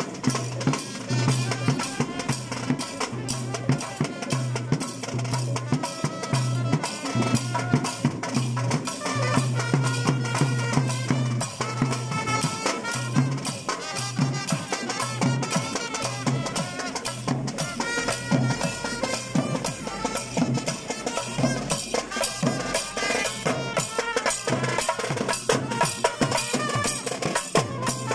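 Traditional Sri Lankan procession drums played in a fast, dense rhythm of sharp strokes, with a high melodic line over them.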